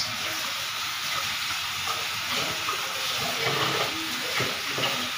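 Kitchen tap running into a stainless steel sink while hands are washed under it: a steady hiss of water that comes on suddenly.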